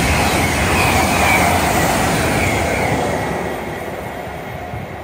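Great Western Railway Intercity Express Train (Class 800-series) passing at speed: a loud rush of wheels on rail and air, with a faint high whine that dips slightly in pitch. It fades steadily from about three seconds in as the train draws away.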